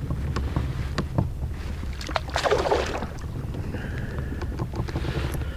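A brief splash of water about two seconds in as a bass is let go over the side of a kayak, with a few light knocks on the boat. A steady rumble of wind on the microphone runs underneath.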